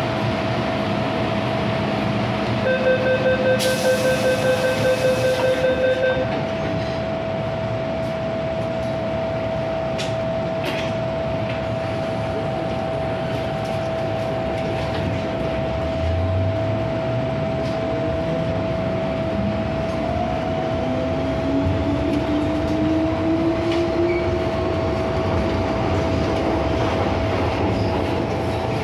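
MTR Island Line M-Train at a station: a rapid door-closing warning beep sounds for about three seconds with a hiss as the doors shut. About halfway through, the train pulls away and its traction motors whine, climbing steadily in pitch as it accelerates, over a steady tone and running noise.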